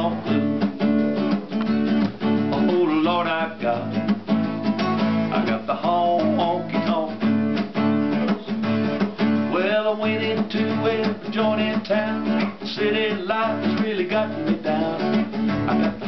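Steel-string acoustic guitar strummed in a steady country-blues rhythm, an instrumental break between sung verses.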